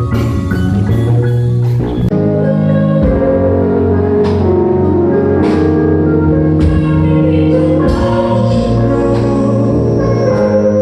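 Music with singing over sustained, organ-like chords. The music changes abruptly about two seconds in.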